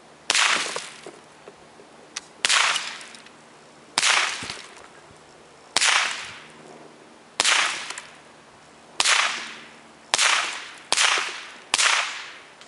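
Nine gunshots fired in steady succession, about one and a half to two seconds apart and coming faster, under a second apart, near the end. Each shot is a sharp crack that dies away over about a second.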